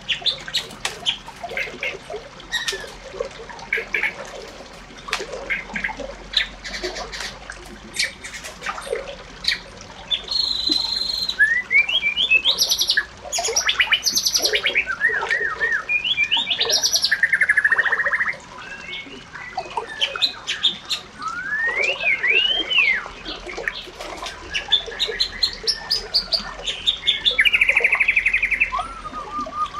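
Birds chirping and calling: many short chirps and clicks, with rising and falling whistled notes and a couple of buzzy trills in the second half.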